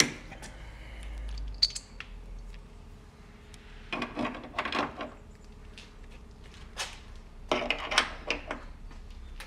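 Small metal parts clinking and rattling as a threaded stud and its retaining clip are fitted by hand into a hole in a van's steel chassis rail: a sharp click at the start, then two short bursts of clinking about four and eight seconds in.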